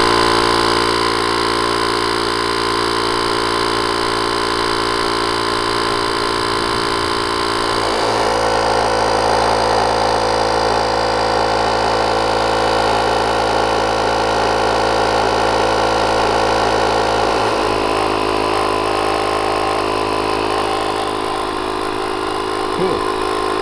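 The small 12-volt air compressor built into a JF.EGWO jump-starter pack running steadily as it pumps up a nearly flat car tire. Its drone shifts in tone about a third of the way through and again about three-quarters through.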